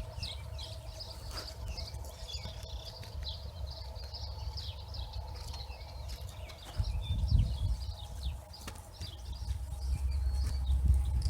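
Swallows twittering continuously with quick, high chirps, over a low rumble that swells about seven seconds in and again near the end.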